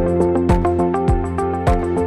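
Background music with a steady beat: a low drum hit a little more than every half second under held chords and high ticks.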